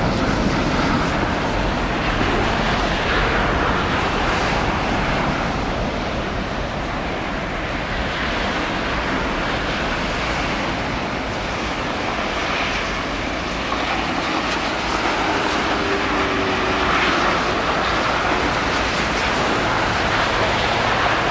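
Jet engines of a Boeing 777 heard as a steady rushing noise that dips slightly in the middle and builds again towards the end, mixed with gusting wind on the microphone.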